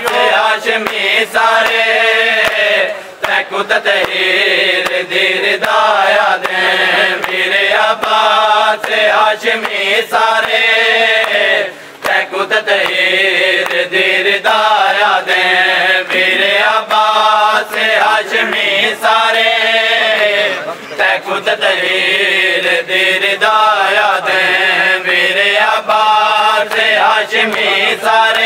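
A man's voice chanting a Shia mourning lament (noha) in a slow, repeating melody. Frequent sharp slaps of hands beating on bare chests (matam) run through it.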